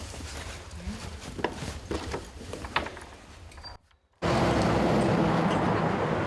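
Scattered small clicks and knocks of objects being handled, then a sudden cut, after a brief silence, to loud, steady vehicle noise with a low hum.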